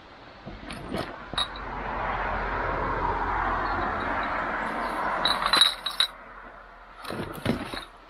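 Wheels of a heavily loaded hiking trolley rolling and scraping over stony, leaf-covered ground in a long rush, with the load rattling and clinking. A loud cluster of clinks comes about five and a half seconds in, and a few knocks follow near the end.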